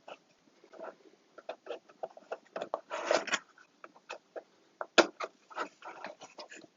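Handling the panels and wiring of a flat-pack box during assembly: scattered small clicks, taps and rubbing, with a sharper click about five seconds in.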